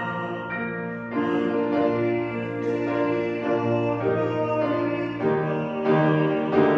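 Keyboard music: slow, sustained chords that change roughly once a second.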